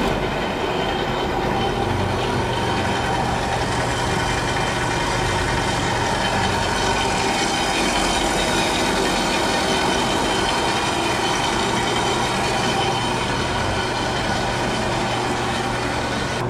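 MIG welder arc running in one long continuous bead: a steady hissing crackle over a low hum, starting abruptly just before and not letting up.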